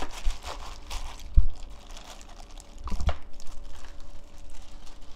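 A plastic-gloved hand tossing and squeezing seasoned raw skate and vegetables in a stainless steel bowl: irregular crinkling of the plastic glove and wet rustling of the dressed vegetables, with two dull knocks, about a second and a half and three seconds in.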